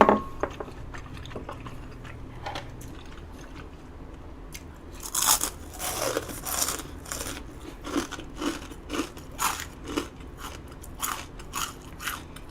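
A sharp click at the very start, then a loud bite into crispy battered fried food about five seconds in, followed by close-up crunchy chewing at about two crunches a second.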